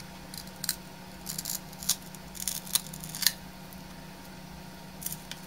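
Thin pry tool scraping and clicking in the seam of a small plastic action-camera case as its snap-on LCD cover is worked loose: a string of short clicks and scrapes through the first three seconds or so, then two more about five seconds in.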